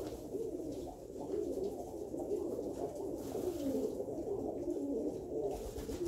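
Several Alföldi-Körösi tumbler pigeons cooing at once, a continuous overlapping chorus of low warbling coos.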